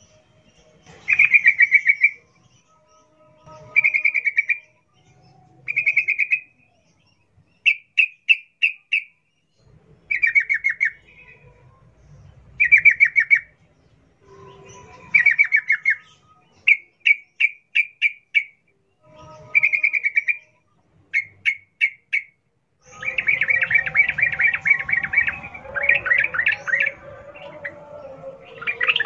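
Yellow-vented bulbul (trucukan) singing in short bursts of rapid, bubbly chattering notes, each burst about a second long with pauses between. From about 23 seconds in the song becomes continuous and denser, with more voices layered together.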